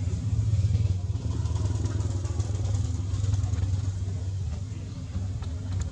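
An engine running steadily with a low hum, loudest about a second in and then slowly fading.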